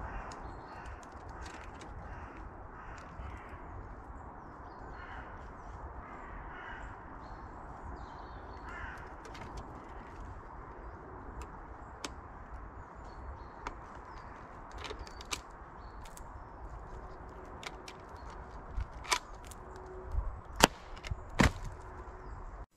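Crows cawing repeatedly in woodland over a steady low rumble, the calls mostly in the first half. Near the end come a few sharp, loud knocks.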